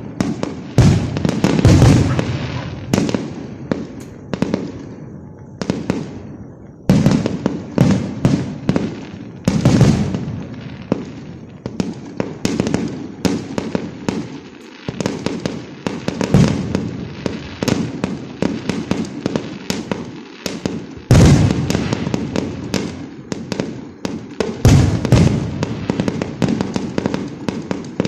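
Fireworks going off in rapid succession: a continuous string of sharp bangs and crackles, with louder, deeper bangs every few seconds.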